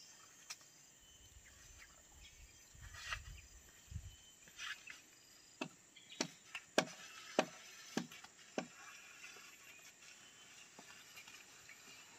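Faint steady high-pitched insect drone. Midway through, a run of six sharp clicks comes about half a second apart, after a few softer knocks.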